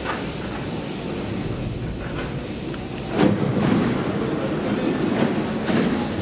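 Metro train running through the station with a steady high-pitched wheel squeal over a low rumble. The rumble and clatter grow louder about three seconds in.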